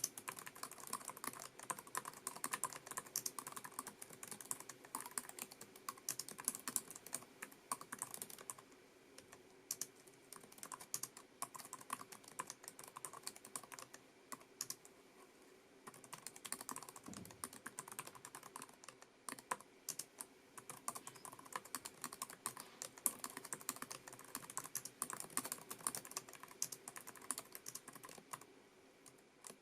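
Typing on a Lenovo ThinkPad TrackPoint Keyboard II, its low-profile scissor-switch keys clicking in quick, continuous runs broken by a few brief pauses.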